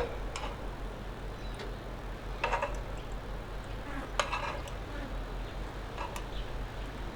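Scattered light clicks and taps of tongs and utensils handling sausages and onions in bread rolls, four or five in all, the sharpest about four seconds in, over a steady low hum.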